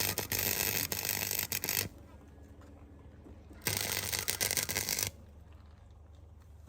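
100 V semi-automatic MIG welder's arc crackling in two short runs, about two seconds and then about a second and a half, each with a low buzz.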